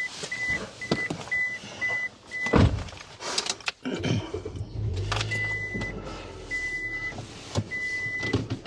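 A car's warning chime beeps repeatedly. A door thumps shut about two and a half seconds in, and about four seconds in the engine starts and settles into a steady idle while the chime carries on in longer beeps.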